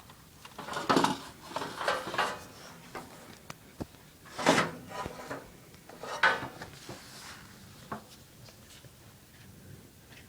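Irregular handling noise: a few short clattering, scraping bursts and scattered clicks, with no steady engine sound.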